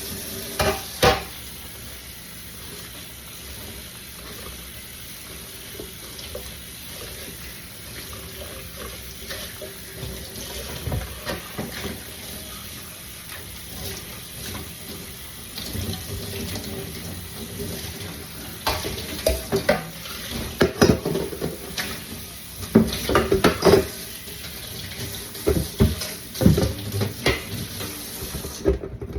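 Water running from a kitchen tap into a sink, with dishes and cutlery clattering against it. The clatter gets busier in the second half, and the running water cuts off just before the end.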